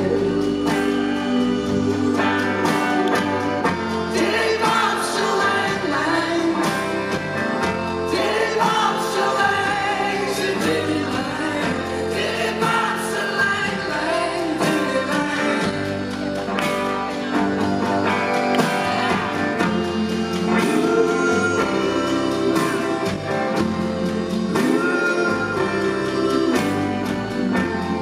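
Live rock band playing a song, with a male lead voice singing over electric guitar, saxophone and drums, heard from within the audience.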